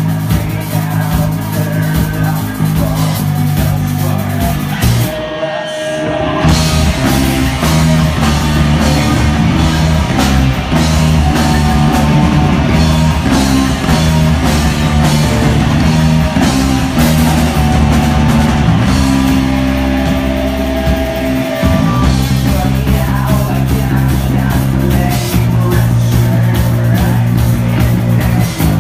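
Live rock band playing: electric guitars and drum kit with a singer. The band briefly drops out about five seconds in, then comes back in louder.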